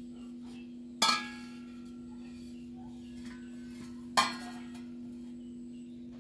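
Stainless steel exhaust mufflers clinking twice as they are handled, two sharp metallic knocks about three seconds apart, each ringing briefly. A steady low hum runs underneath.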